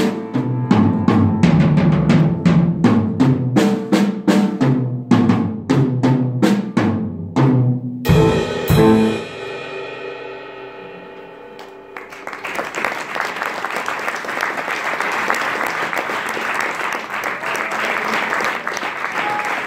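Tama drum kit and grand piano playing the closing bars with steady, regular drum strikes, ending on a final loud chord about eight to nine seconds in that rings out and fades. From about twelve seconds in, an audience applauds.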